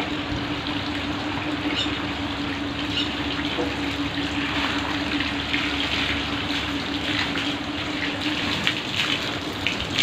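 Water pouring from a garden hose, splashing onto a person and the puddled ground in a steady rush. A steady low hum runs underneath and stops near the end.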